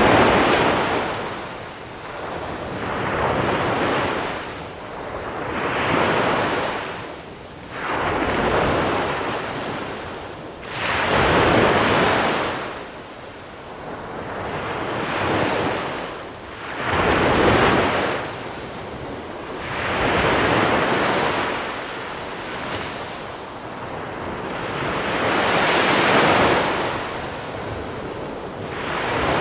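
Small sea waves breaking and washing over a pebble shore, the surf swelling and falling back about every two to three seconds.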